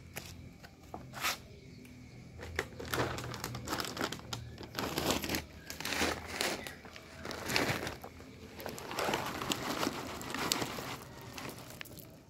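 Plastic packaging crinkling and rustling in irregular bursts, with many sharp crackles.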